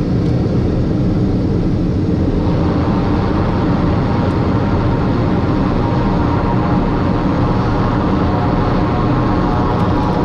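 Piper M600's Pratt & Whitney PT6A turboprop engine and propeller heard from inside the cockpit while the aircraft rolls along the runway: a steady low rumble, with a higher whine coming in about two and a half seconds in.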